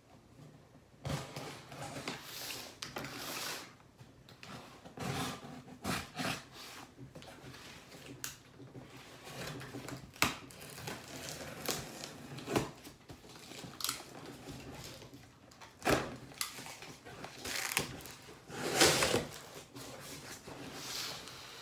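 Packing tape on a cardboard shipping box being slit with a blade and torn, in a series of irregular scratchy rips and sharp knocks. Near the end the cardboard flaps are pulled open.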